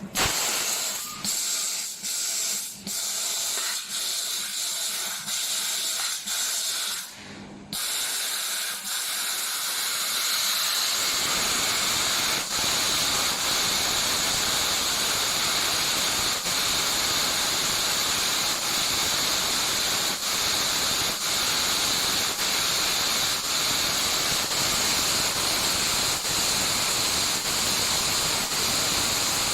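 Fiber laser cutting machine running: a loud hiss of assist gas from the cutting head, coming in short spurts with brief gaps about once a second at first, then continuous with only momentary dips from about ten seconds in.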